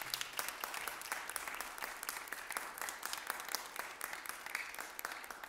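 Audience applauding: many people clapping together, steady throughout.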